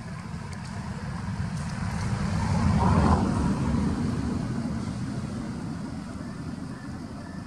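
A road vehicle passing by: low noise that builds to its loudest about three seconds in and then slowly fades away.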